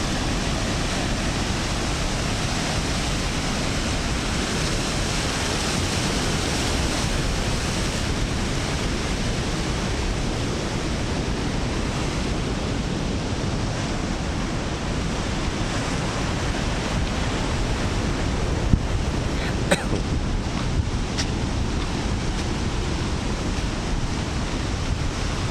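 Ocean surf breaking on the shore, a steady rushing wash, with wind buffeting the microphone. A few brief sharp clicks come about three-quarters of the way in.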